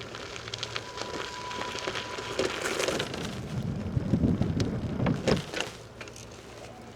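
Bike rolling over a rough woodland trail: a crackling tyre noise dotted with small clicks, with louder rumbling in the middle, then quieter after about six seconds.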